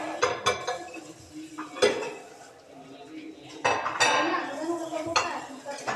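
Ceramic plates and cutlery clinking and clattering as dishes are handled on a counter: a string of sharp clinks, the loudest about two seconds in and again around four seconds.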